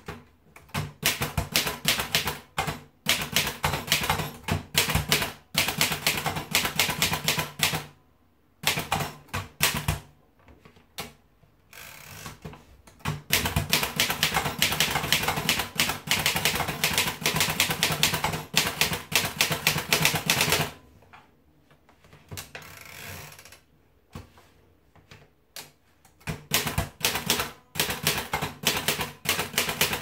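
Erika Model S portable manual typewriter being typed on: fast runs of clacking key and typebar strikes, broken by a few pauses of a couple of seconds or more.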